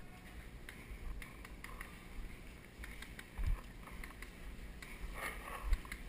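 Handling noise from a paintball marker being carried with an action camera mounted on it: a low rumble with scattered faint clicks and two dull thumps, the louder one near the end.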